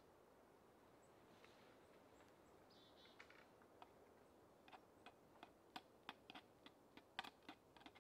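Faint, irregular small clicks and taps from hands working at a tree trunk, sparse at first and coming a few a second in the second half.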